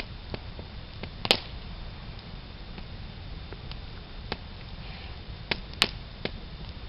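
Campfire wood crackling: irregular sharp pops and snaps, two of them louder, about a second in and near the end.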